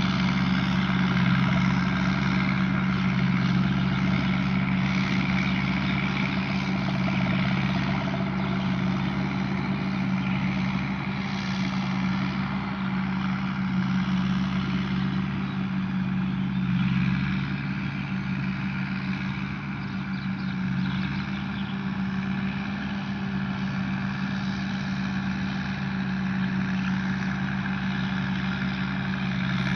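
Tamco combine harvester's Isuzu 6HK1 six-cylinder diesel engine running steadily, a constant heavy engine drone with machinery noise over it.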